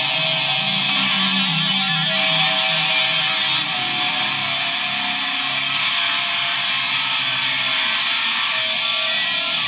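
Electric guitar played through effects pedals: a melodic line of single notes under a steady, bright, hiss-like wash of effect sound.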